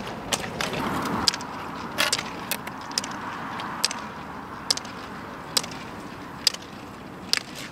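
Roller skis rolling on asphalt with a steady hiss from the wheels, over which come sharp, irregular clicks of the ski poles' carbide tips striking the pavement, roughly two a second.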